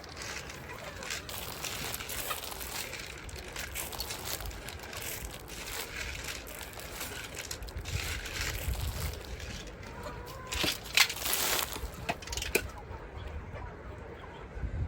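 Chickens clucking over a continuous crackling rustle, with a few sharp clicks in the second half.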